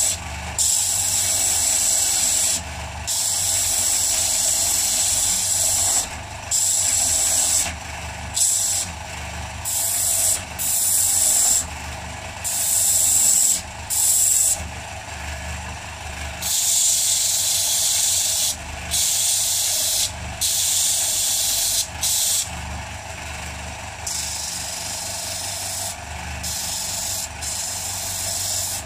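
Motor-driven sanding disc running steadily, with repeated hissing, scraping bursts, each half a second to a few seconds long, as a hard morta (bog oak) pipe bowl is pressed against it to rough out its shape. The bursts are weaker in the last few seconds.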